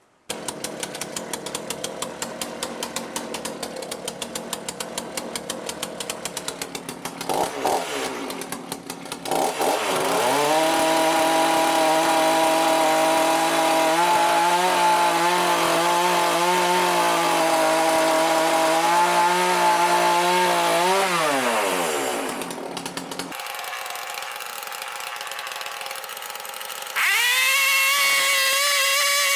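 Two-stroke chainsaw engine being warmed up before its Walbro carburettor is fine-tuned. It comes in suddenly and idles with an even beat, is revved up about ten seconds in and held steady at high speed, drops back to a lower speed, then is revved up again near the end.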